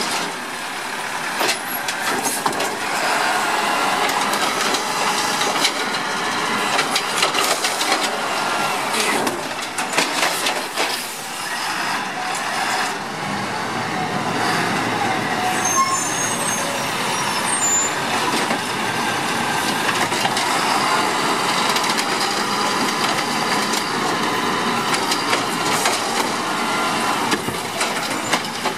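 Automated side-loading garbage truck running as it drives between stops and pulls up to the next carts, its engine steady throughout, with hisses of its air brakes and scattered clanks.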